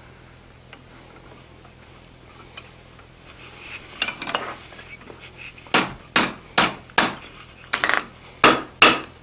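A blacksmith's hammer strikes a hot steel bar on the anvil, bending the spring loop of a one-piece spring fuller, with sharp blows at about two a second that begin a little past halfway. A few light metal clinks come just before the blows.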